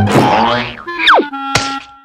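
Cartoon sound effects over music: a springy boing at the start, a quick falling whistle about a second in, then a sharp thunk followed by a short ringing tone.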